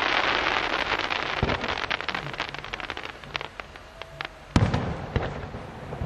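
Aerial fireworks display: dense crackling from a burst that thins out over the first few seconds, then a loud bang about four and a half seconds in and a smaller one half a second later.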